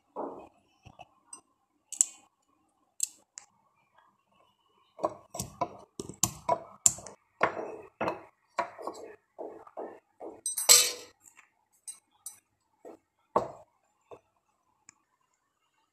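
Green cardamom pods crushed in a mortar with a pestle: a run of knocks, about three a second, through the middle, with a few sharper clinks of utensils before and after.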